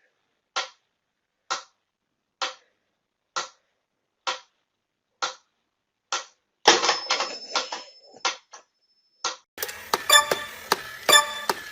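Sharp, evenly spaced clicks, a little over one a second, like a clock ticking. About two-thirds of the way in they give way to quicker, irregular clicking and rattling.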